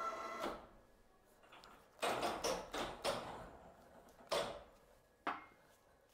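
Metal clanks from fitting an oil pan to an engine block in a workshop: about six separate knocks, each dying away with a short ring.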